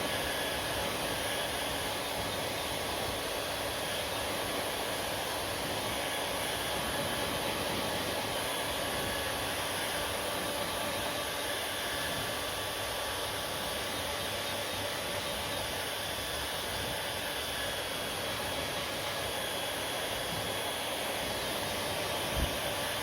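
Hair dryer running steadily: an even rush of blown air with a faint steady whine. A single short knock comes near the end.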